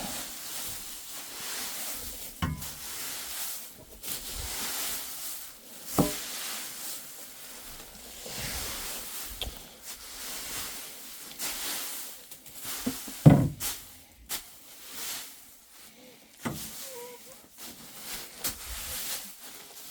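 Loose wood shavings rustling and scraping as they are spread by hand, with a few sharp knocks, the loudest about thirteen seconds in.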